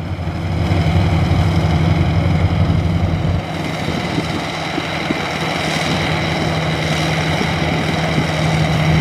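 Maxxi Bimo NDR 102L combine harvester's diesel engine running steadily, with a higher whine from its machinery above the engine hum. The engine note shifts about three and a half seconds in, when its deepest part drops away.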